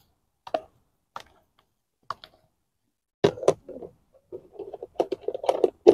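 Fish being mixed by hand with seasoning in a plastic bowl: scattered sharp clicks about a second apart, a couple of louder knocks about three seconds in, then a quick, dense run of knocking and rubbing near the end.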